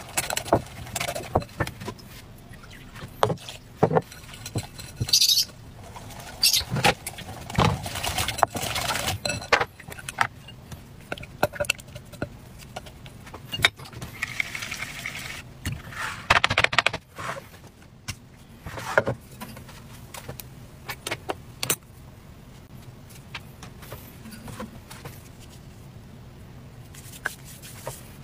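Wire whisk clinking and scraping against a glass bowl while mixing batter, with irregular knocks and clatter as bowls and utensils are handled and set down.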